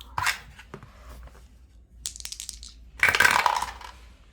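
Dice being rolled for a shut-the-box style game: a sharp click, a few light clicks, a short rattle, then a louder clatter about three seconds in as the dice land and tumble.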